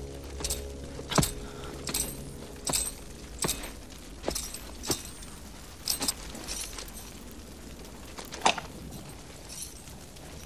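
Slow boot footsteps on hard-packed dirt with spurs jingling, about one step every three-quarters of a second. A single sharper, louder metallic clink comes near the end.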